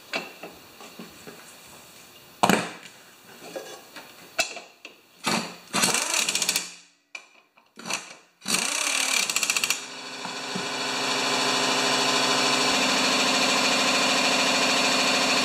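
Metal clanks as a lawn mower blade is fitted, then an impact wrench hammering the blade bolt tight in two short bursts. After that, a steady machine drone runs to the end.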